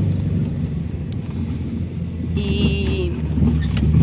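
Car engine and road noise heard from inside the cabin as the car drives slowly uphill, a steady low rumble. A brief high wavering tone sounds about two and a half seconds in.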